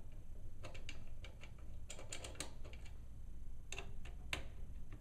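Light clicks and ticks of a screwdriver and fingers working the two screws that hold a cooling fan in a metal instrument chassis, loosening them, in three short clusters.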